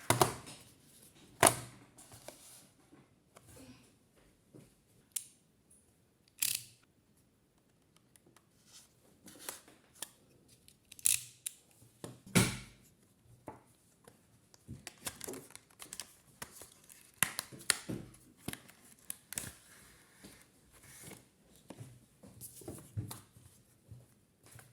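Irregular clicks, knocks and rustling from hands handling computer hardware and RAM parts, with a few sharper knocks standing out.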